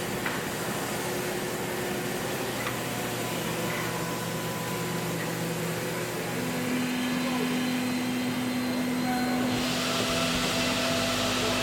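CNC milling machine running, machining aluminum blocks: a steady mechanical whir. A new steady hum comes in about six seconds in, and a hiss joins near the end.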